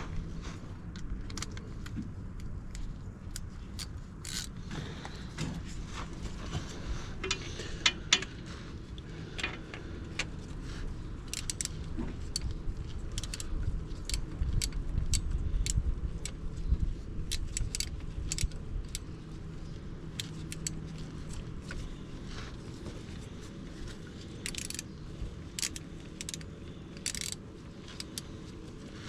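Socket wrench ratcheting and metal tools clinking in irregular spells of short clicks as the ATV's oil drain plug is threaded back in and tightened with a 17 mm socket, over a low steady rumble.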